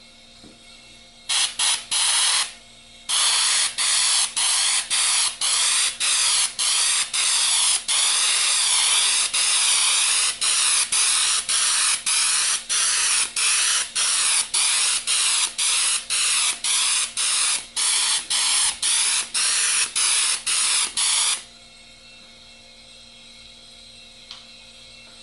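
Airbrush fitted with a homemade screen-covered nozzle cap, spraying paint to spatter a speckled granite effect: a loud hiss of air and paint that comes in short pulses, about two a second. It starts about a second in, pauses briefly, and stops a few seconds before the end.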